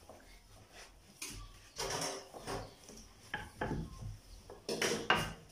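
Wooden rolling pin rolling a sheet of dough on a granite countertop: a run of uneven rolling strokes with light knocks of wood on stone, the loudest a little before the end.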